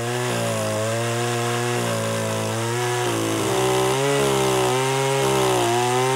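Oleo-Mac pole pruner's two-stroke petrol engine running at cutting speed as its chain saws through a tree branch. The engine note wavers a little as the chain bites into the wood and gets slightly louder about four seconds in.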